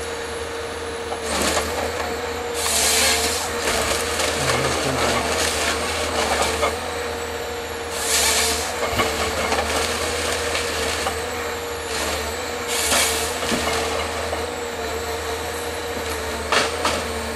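John Deere wheeled forest harvester at work: its diesel engine and hydraulics run with a steady whine. This is broken by several loud rushing bursts, each about a second long, and a couple of sharp cracks as the harvester head grips, feeds and processes logs.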